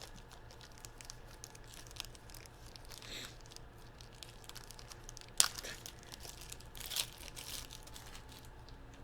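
Sports card pack wrapper being torn open and crinkled while cards are handled: small clicks and rustles, a sharp snap about five and a half seconds in and a louder rustle about a second later, over a steady low hum.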